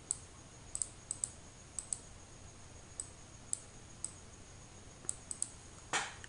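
Computer mouse clicking: about a dozen light, sharp clicks at irregular intervals, several in quick pairs like double-clicks, over a faint low hum. A short, louder noise comes near the end.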